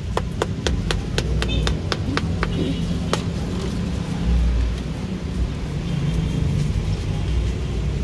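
Kitchen knife chopping fried banana on a cutting board: quick, even chops about four a second that stop about two and a half seconds in, with one more knock a moment later. A steady low rumble of street traffic runs underneath.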